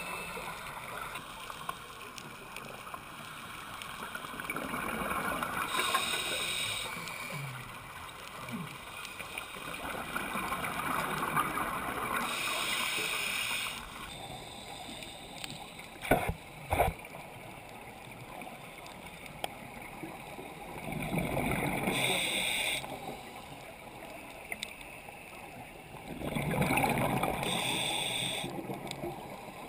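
Scuba divers breathing through their regulators, heard underwater: bursts of exhaled bubbles gurgling for a few seconds at a time, about every six to eight seconds, with a quieter hiss between. Two sharp clicks about sixteen seconds in.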